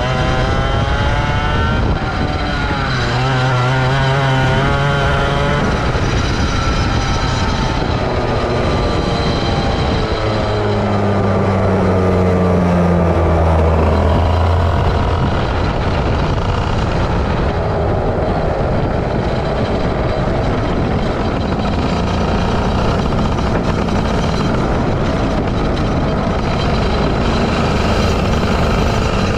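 Kart engine heard onboard while the kart is driven, its pitch rising and falling repeatedly as the revs climb and drop through the corners. In the second half it runs on with less clear pitch changes as the kart slows toward the pits.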